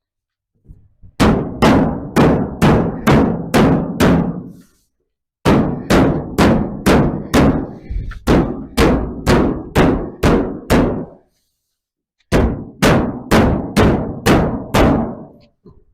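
Hammer blows on steel sheet, struck about three times a second in three runs, each blow ringing briefly: the plate is being hammered into a bend to shape a new tail panel.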